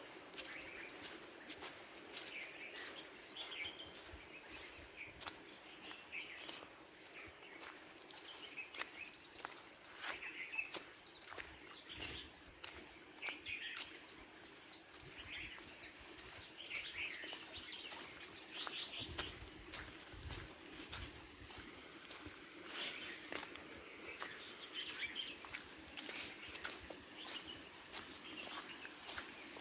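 Outdoor insect chorus: a steady, high-pitched shrill trill that grows louder toward the end, with scattered short chirps and light clicks over it.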